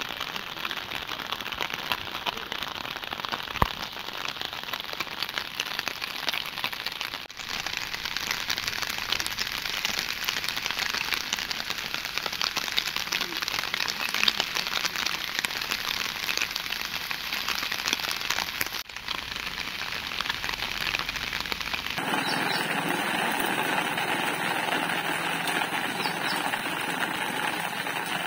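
Steady rain pattering, a dense crackle of drops. About three-quarters of the way through, the noise changes texture and gets slightly louder.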